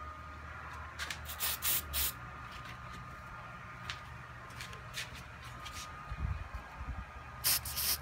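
Aerosol spray-paint can hissing in short bursts as a light coat of paint goes on: a quick cluster of sprays about a second in, a few scattered single sprays, and two longer, louder sprays near the end.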